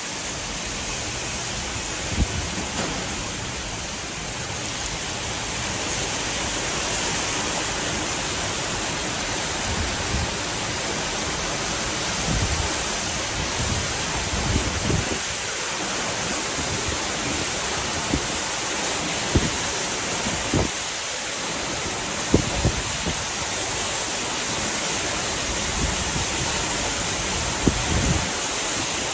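Rain pouring down in a steady hiss, with short low thumps here and there.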